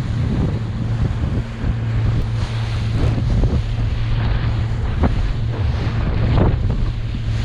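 Boat engine running steadily at speed, with wind buffeting the microphone and water splashing against the hull.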